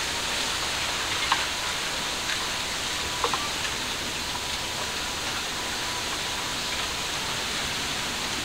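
Steady outdoor background hiss, with a few faint short clicks about a second in and again about three seconds in.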